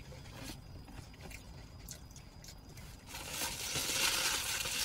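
Paper food wrapper being handled: a few faint clicks, then from about three seconds in a steady run of crinkling and crumpling.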